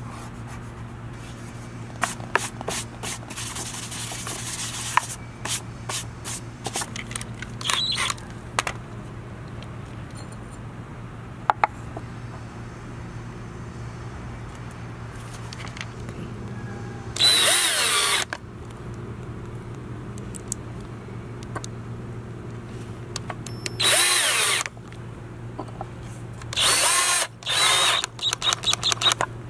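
Cordless drill driving wood screws through a cast-iron pipe floor flange into a pine base, in three short runs about 17, 24 and 27 seconds in, the motor's whine rising and falling as each screw seats. Before them come light rubbing and handling sounds on the wood, over a steady low hum.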